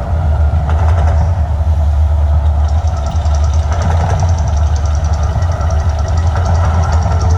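Deep, steady rumble from the Mirage volcano show, loud and continuous, with a faint fast rattling texture on top from about three seconds in.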